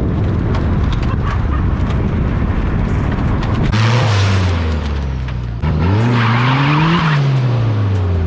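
Turbocharged Nissan Hardbody pickup's engine revving hard while its rear tyres spin and squeal on the welded differential. The revs climb and fall about four seconds in, then after a brief dip they rise again for about a second and fall away, each push with a hiss of tyre noise.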